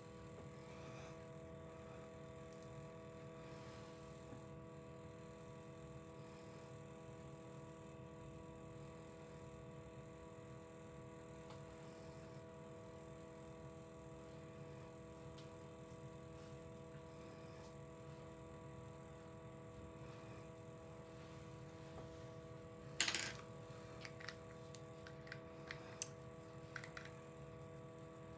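Quiet room tone with a steady faint hum. About 23 seconds in, a sharp knock, then a few small clicks and taps: makeup items being handled and set down.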